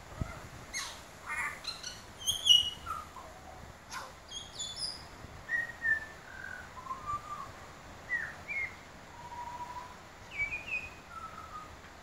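Butcherbird singing: a loose run of clear, fluted notes, some sliding up or down in pitch, with short pauses between phrases.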